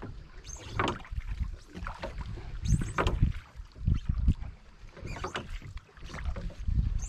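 Wooden oar of a rowing boat dipping and pulling through the water, with a splashy stroke about every two seconds over a low rumble of wind on the microphone.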